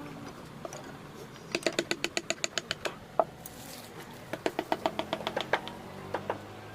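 Carving chisel tapped with a mallet into wood in two quick runs of light, ringing strikes, about seven a second, with a few single taps between. A low steady hum comes in about halfway.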